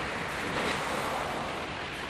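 Sea waves washing onto the beach. The surf swells about half a second in and then eases off.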